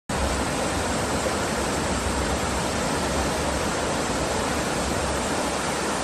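Waterfall: a tall cascade falling steadily into its plunge pool, an even rushing noise without pause.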